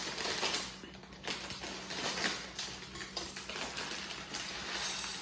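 Plastic bag of rice crinkling and crackling as it is torn open and handled, in an irregular run of short crackles.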